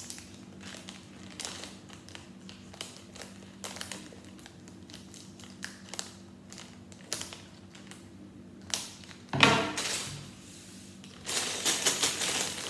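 A plastic Lego polybag being cut open, with a long run of small clicks and ticks from the cutting and handling. Loud crinkling of the plastic comes twice, briefly about nine seconds in and then again near the end as the bag is opened up.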